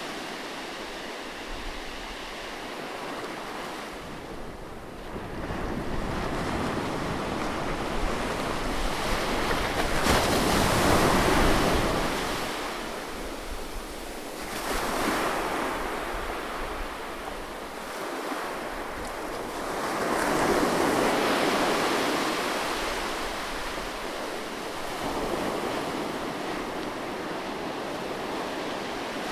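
Sea waves breaking close on a shore, the surf swelling and falling back every few seconds as each wave comes in and washes out.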